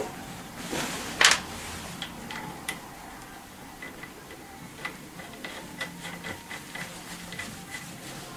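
Light metallic clicks and ticks from the front axle bolt and nut of a Tao Tao ATM50A scooter being worked by hand. There is one sharper click about a second in, then a run of small quick ticks in the second half as the nut is threaded on.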